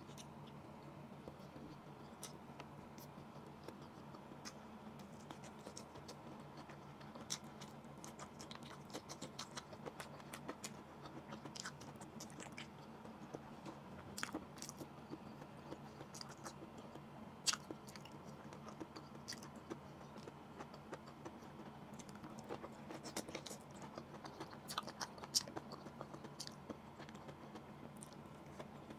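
Close-miked chewing and mouth sounds of a person eating grilled fish and rice by hand, with many small wet clicks and smacks scattered throughout. A faint steady hum runs underneath.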